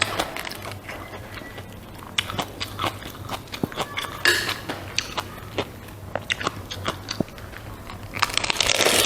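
Close-up eating sounds: irregular wet chewing clicks and crunches of a person chewing food, turning into denser, louder crunching near the end.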